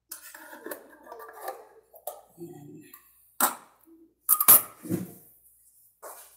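Cream being scraped out of a tin with a utensil, which clinks against the tin and a bowl. There are several sharp clinks in the second half.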